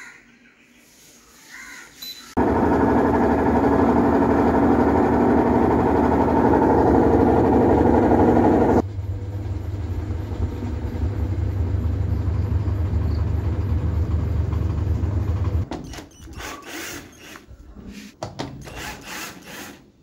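Whirlpool top-load washing machine running with a loud noise from a worn tub bearing. After a sudden cut about nine seconds in, it runs much more quietly with a steady low hum, its bearing replaced. Near the end a cordless drill runs in short spurts, driving out the cabinet screws.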